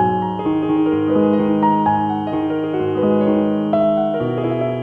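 Background piano music, a melody of sustained notes changing every half second or so.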